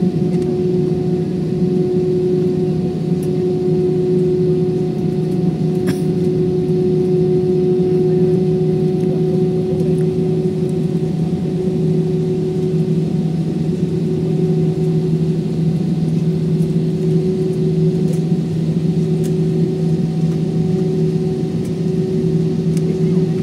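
Airliner's jet engines at idle, heard from inside the cabin while the plane taxis: a steady hum with a constant droning tone over a low rush.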